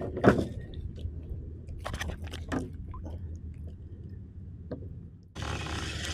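Scattered light clicks and knocks of handling a redfish on a lip-grip tool in a kayak, over a low rumble. About five seconds in the sound cuts abruptly to a steady hiss of wind and water.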